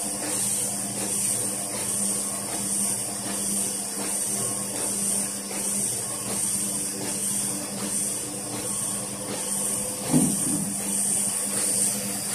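Autoprint sheet-fed offset printing press running: a steady mechanical hum with a hiss that keeps pulsing. About ten seconds in there is a brief, louder sound.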